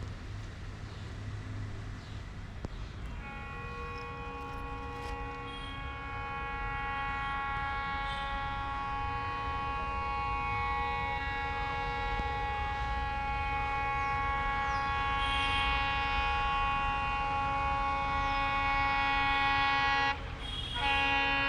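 Indian Railways WDM-3A rebuilt ALCo diesel locomotive under heavy power on notch 7, its engine chugging throughout. From about three seconds in, its multi-tone horn sounds one continuous chord for some seventeen seconds, breaks briefly near the end, then sounds again. The whole sound grows steadily louder as the locomotive approaches.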